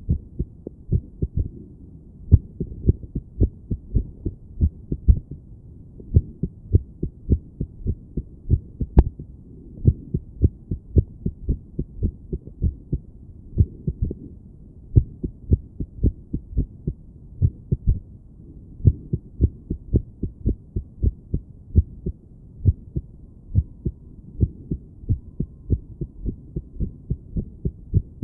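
A woman's heartbeat heard through a stethoscope on her chest, a dull low thumping with an uneven rhythm: beats bunch up and then pause, typical of an irregular heartbeat.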